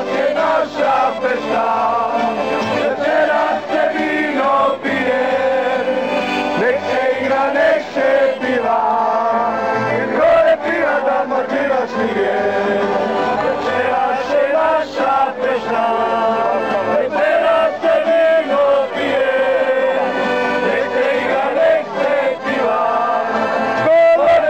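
A group of men singing together loudly in unison, accompanied by accordion and guitar, as a festive crowd sing-along.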